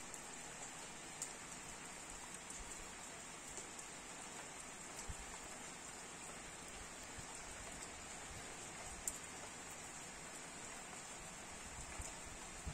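Steady rain falling on wet ground and puddles: a faint, even hiss with a few sharp drop ticks scattered through it.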